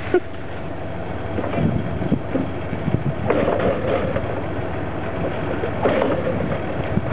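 Chainsaw that is hard to start being pull-started, with a surge of sound every couple of seconds over a continuous rough, rattling mechanical noise.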